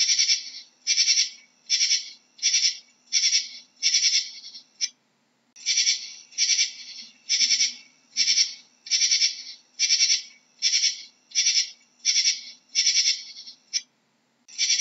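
Katydid stridulating: a regular series of short, high chirps, about three every two seconds, with a short break about five seconds in and another near the end.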